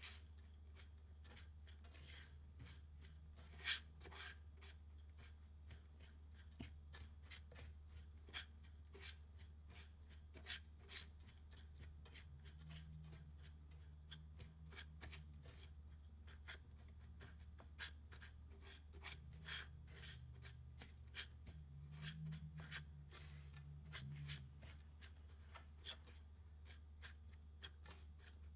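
Silicone spatula stirring and scraping dry graham cracker crumbs around a nonstick frying pan, as the crumbs toast with butter: faint, irregular scratching and small ticks. Under it runs a steady low hum.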